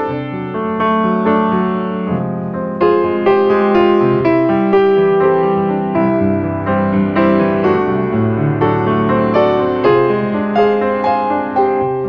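Background piano music: a melody of struck notes over chords, each note starting sharply and fading.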